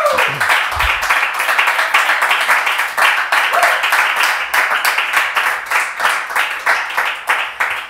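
Small audience applauding after a song, many hands clapping, thinning out near the end.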